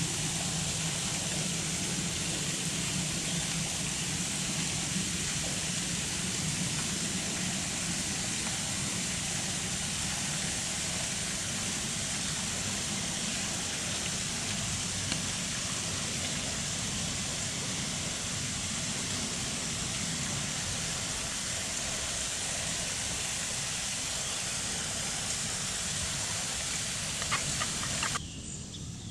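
Steady outdoor background noise, an even hiss with a low hum and no distinct events. Near the end it cuts suddenly to a quieter background with insects chirping.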